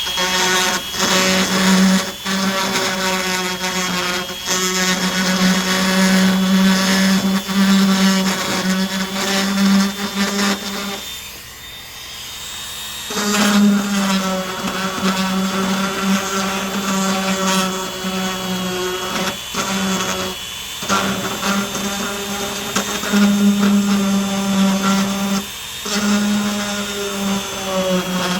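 Dremel rotary tool running at high speed with a steady high whine, its small bit grinding yellowed residue off the plastic of a BMW headlight's DRL halo. The grinding buzz breaks off briefly several times as the bit is lifted, with the tool running free for a couple of seconds a little before halfway.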